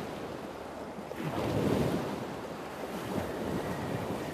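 Ocean surf washing onto a sandy beach, with wind buffeting the microphone; the surf swells louder about a second in, then settles back.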